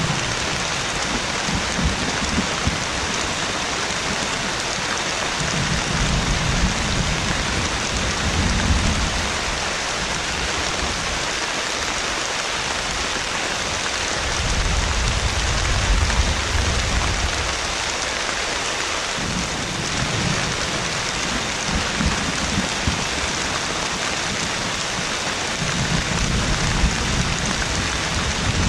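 Heavy rain pouring steadily, with low rolling thunder swelling and fading three times: about a fifth of the way in, around the middle, and near the end.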